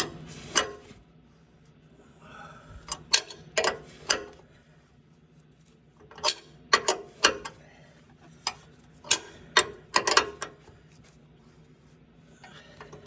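Hand ratchet wrench clicking in short groups as it is swung back and forth, with quiet pauses between strokes. It is slowly driving a slot cutter that elongates the upper control arm bolt hole.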